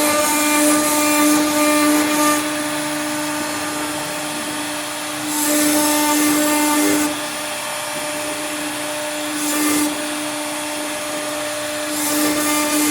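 CNC router spindle running with a steady whine while the bit cuts wood, the cutting hiss growing louder in stretches: at the start, midway, briefly later and again near the end.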